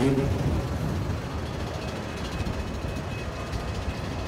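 Steady low rumble of an airport belt loader running, its conveyor carrying wooden crates down from an aircraft's cargo hold. There is a short knock at the start, and a faint steady high whine joins about halfway through.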